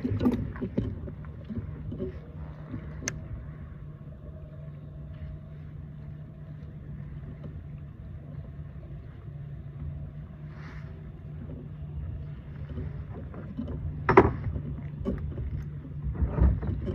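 Knocks and rumbling noise aboard a kayak on the water, over a steady low hum. A sharp knock comes about 3 s in and a louder one about 14 s in.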